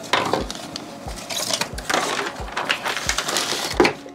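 Hand roller being worked back and forth over a foil-faced butyl sound-deadening pad, a run of rasping, crinkling strokes as the mat is pressed flat against the van's sheet-metal wheel well.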